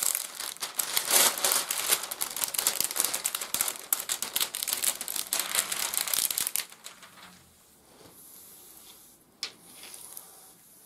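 Clear plastic cover film on a diamond painting canvas crinkling as hands smooth and press the canvas flat. The crinkling is dense for about the first seven seconds, then it goes quiet apart from one sharp crackle near the end.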